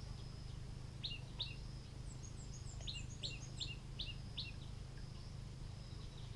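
Birds calling: a pair of short sharp notes repeated several times, with a quick run of higher, falling chirps about two seconds in, over a steady low rumble.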